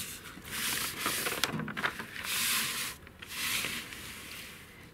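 Notebook paper rustling in three or four swishes as the page is turned and the sheet moved.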